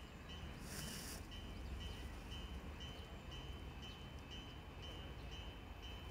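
Railway level-crossing warning bell ringing faintly in an even rhythm of about two strikes a second, with a brief rustle of noise about a second in.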